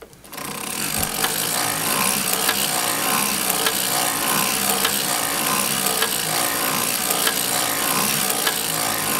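Hand-cranked circular sock knitting machine running: a steady metallic clatter of the latch needles sliding up and down in the cylinder's slots as the cam ring is turned, with a slight pulse about once a second at each turn. It starts about a third of a second in, knitting separator yarn.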